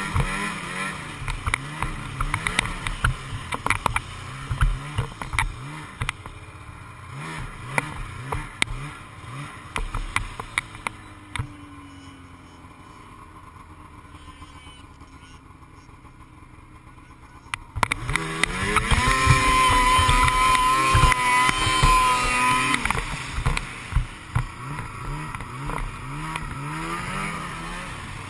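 Snowmobile engine revving up and down repeatedly while riding through snow, with frequent knocks and clatter from the ride. Around the middle it eases to a quiet low run. About eighteen seconds in it revs hard and holds high for a few seconds before dropping back.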